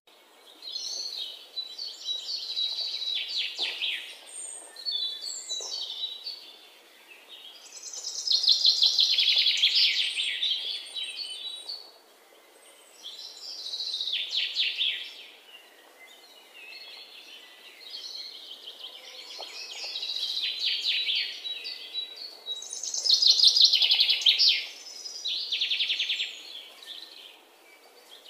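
Birds singing: high trilling phrases, each one to two seconds long, repeated every few seconds.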